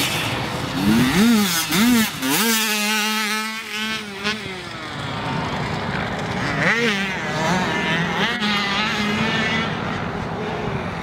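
Dirt bike engines revving on a motocross track. The pitch climbs and drops in quick bursts over the first two seconds, then holds high for about two seconds. It rises again around seven seconds in and settles to a steady drone.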